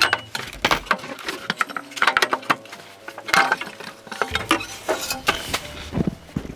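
Repeated metallic clinking and knocking of tools and parts being handled, irregular and busy, with faint background music underneath.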